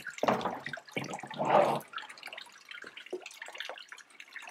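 Ice water draining and dripping through a mesh bubble-hash wash bag into a bucket, with a couple of louder splashy bursts in the first two seconds, then faint crackling drips. The water drains slowly because hash is clogging the bag's mesh.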